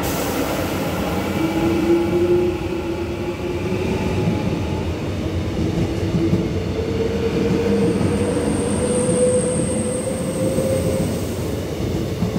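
Korail Class 331000 electric multiple unit pulling away from the platform: its inverter-driven traction motors whine in tones that climb in pitch as it gathers speed, over the rumble of wheels on the rails. A high thin squeal sounds for a few seconds past the middle.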